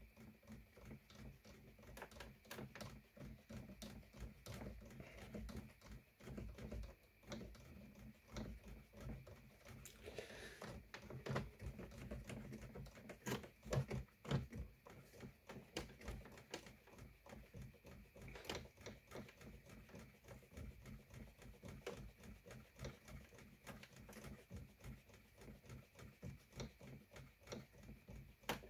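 Aiwa HV-M10SH VHS deck's tape transport mechanism running with its case open: a faint, steady whir under a dense, irregular clicking of gears and levers, a little louder about halfway through.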